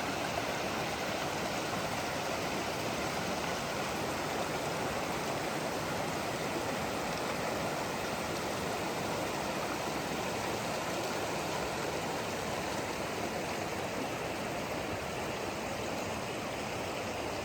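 Steady rushing of a fast-flowing creek running high with snowmelt.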